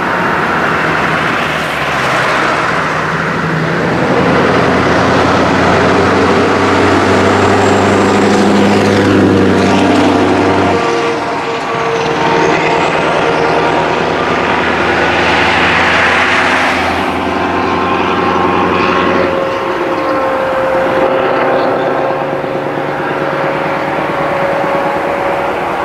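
Scania R500 V8 diesel truck with an open, straight-through exhaust pipe pulling away and accelerating through the gears. The engine note holds steady in each gear, then breaks off and drops at each of several gear changes.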